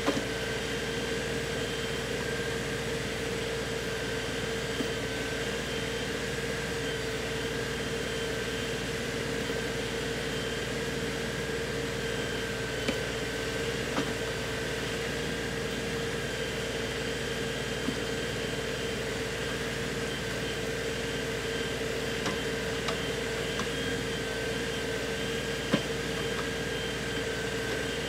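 LS compact diesel tractor's engine running at a steady speed while it powers its backhoe digging, with a constant tone over the engine noise. A few brief, faint knocks come through, loudest about three-quarters of the way in.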